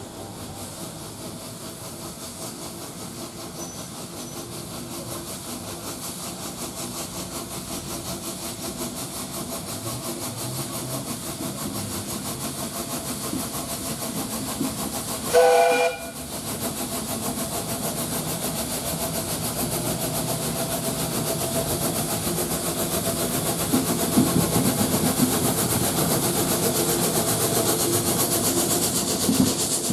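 Sentinel vertical-boilered steam shunting locomotive No. 7109 'Joyce' working a goods train, its exhaust beating rapidly and growing louder as it draws near, with goods wagons rolling behind. About halfway through it gives one short whistle blast, the loudest sound.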